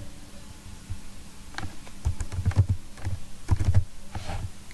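Computer keyboard being typed on: a few short runs of keystroke clicks.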